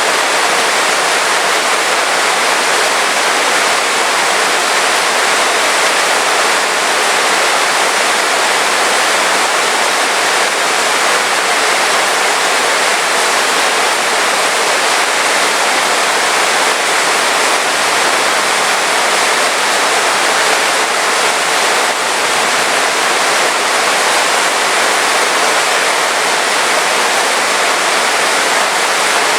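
Heavy rain falling steadily, an even, unbroken wash of noise with no thunder.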